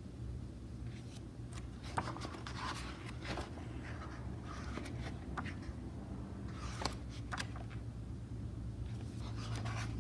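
Pages of a softcover book being turned and handled: soft paper rustles and light clicks every second or so, over a steady low hum.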